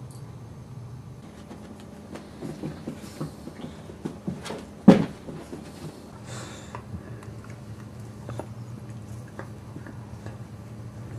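Boxer puppies and an adult boxer scuffling and wrestling on a carpeted floor: scattered soft knocks and thumps, with one loud sharp sound about five seconds in, over a steady low hum.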